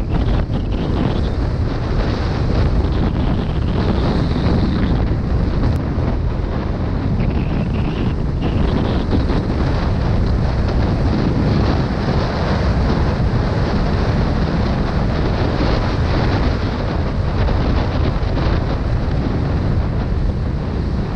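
Steady wind rush on an action camera's microphone while riding a 250 cc X-Terra dual-sport motorcycle along a gravel road, with the engine and the tyres on loose dirt running underneath it.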